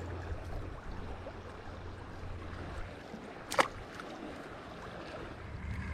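Steady rush of flowing river water, with one sharp click about halfway through.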